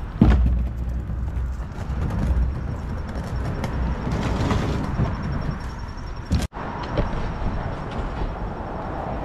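A plastic kayak knocking and scraping against a chain-link fence as it is lifted over and lowered to the ground: a sharp knock just after the start, then low rumbling and scattered knocks. City traffic noise runs under it.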